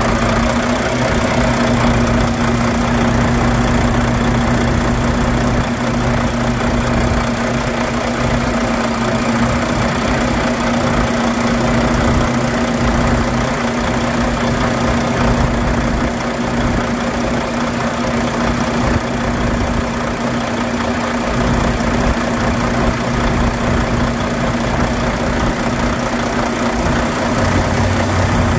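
Volvo six-cylinder diesel engine of a 2017 Volvo VNM truck tractor idling steadily, heard close at the open engine bay.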